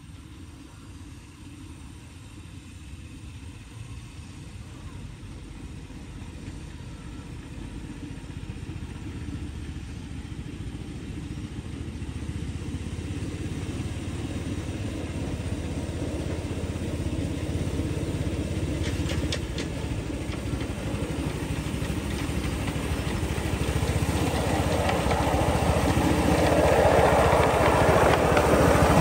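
Petrol engine of a 7¼ in gauge 0-6-0 miniature locomotive running as it approaches along the track, growing steadily louder as it draws near.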